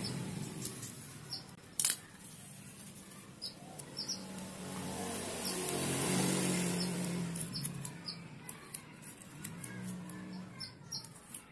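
Masking tape being torn into short strips and pressed onto a sheet of plastic water transfer printing film, with scattered small clicks, crinkles and soft rustling. A sharper click comes about two seconds in.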